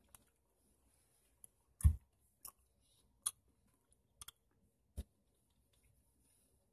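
Chewing a green apple gummy candy with dentures: scattered short clicks and smacks from the mouth, about seven in all. The loudest is a dull thump about two seconds in.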